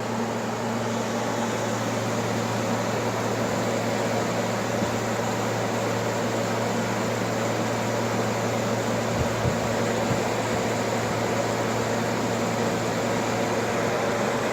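LG 12,000 BTU air conditioner running: a steady rush of fan air over a constant low hum from the running compressor.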